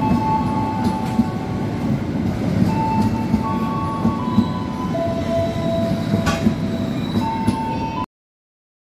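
Railway passenger coaches rolling slowly past, with the wheels rumbling on the rails, thin squealing tones that shift in pitch, and an occasional sharp clank. The sound cuts off abruptly about eight seconds in.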